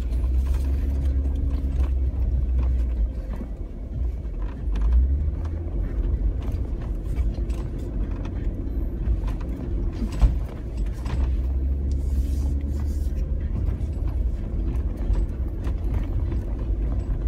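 Jeep driving slowly over a rough dirt trail, heard from inside the cab: a steady low engine rumble with occasional knocks and jolts from the ruts, the sharpest about ten seconds in.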